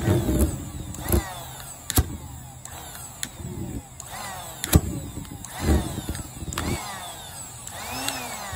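Homemade propane pulsejet firing in single irregular pops, roughly one a second, without settling into a steady run.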